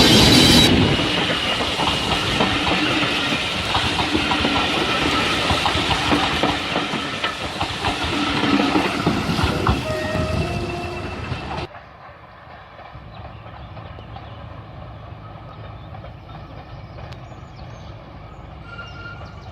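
A train horn chord cuts off under a second in, then a passing train's wheels clatter over the rails with a hiss. About twelve seconds in the sound cuts abruptly to a much quieter, steady background noise.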